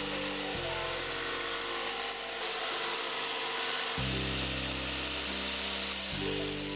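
Electric jigsaw running steadily as it cuts through a thin wooden board, over background music with sustained chords.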